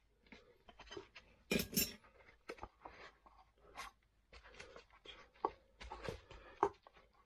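Scattered clicks, knocks and scrapes of a tubeless scooter tire being worked onto its wheel rim by hand, with one louder, longer scrape about one and a half seconds in.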